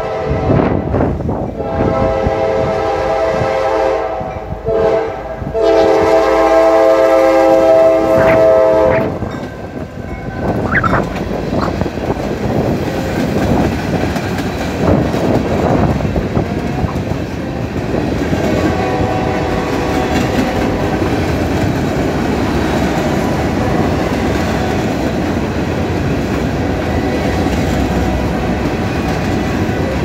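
Norfolk Southern freight locomotive's multi-chime air horn sounding two long blasts for the grade crossing, the second louder and longer, ending about nine seconds in. Then the train's cars roll past with a steady rumble and clatter of wheels on the rails, with a brief wheel squeal about eleven seconds in.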